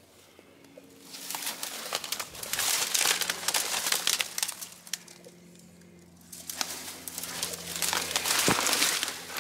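Crackly rustling and crinkling close to the microphone, in two spells: from about a second in until about five seconds, then again from about six and a half seconds on.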